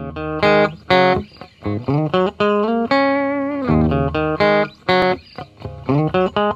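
Intro music led by guitar: a melody of plucked notes, some short and some held with bends and wavers in pitch.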